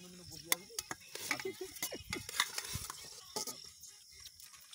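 Rustling and irregular sharp clicks of people eating biryani with their hands from plates.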